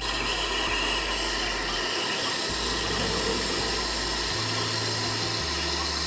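Brazing torch burning with a steady hiss while the copper refrigerant line joints of a replacement refrigerator compressor are brazed.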